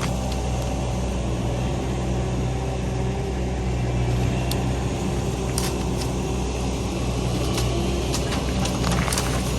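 A vehicle engine running steadily with a low drone, with a few light clicks and rattles over it.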